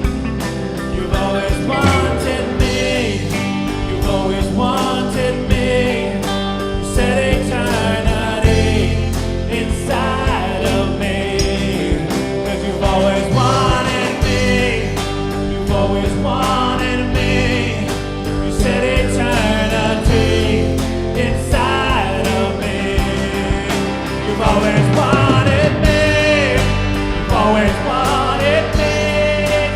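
Worship song played by a band, with singing over a steady drum beat, bass and guitar.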